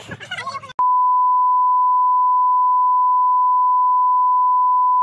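TV colour-bars test tone: one steady beep at a single pitch that cuts in abruptly under a second in, after a brief moment of voices.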